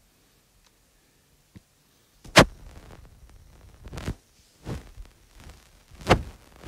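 Fingers tapping on a tablet's touchscreen, picked up as four sharp thumps, the first and loudest about two and a half seconds in.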